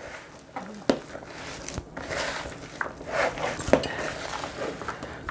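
Hands squishing and kneading meatloaf mixture in a plastic bowl, a wet, mushy sound broken by a few sharp knocks against the bowl, the clearest about a second in, near two seconds and near four seconds.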